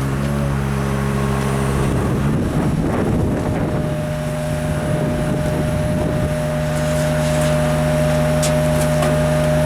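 An engine on the tree-trimming crew's equipment running steadily. Its pitch shifts about two to three seconds in, then it settles again with a higher steady whine added.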